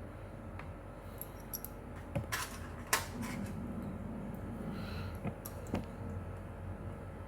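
Light clicks and taps of small parts being handled while a small cable connector is pressed into its socket on a graphics card, a cluster of them about two to three seconds in and a couple more near the end.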